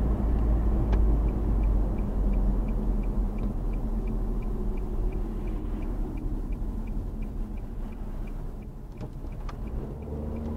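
Road and engine rumble inside the cabin of a 2013 Nissan Juke as it drives, easing off toward the end. A turn signal ticks at an even pace from about a second in until about seven seconds in.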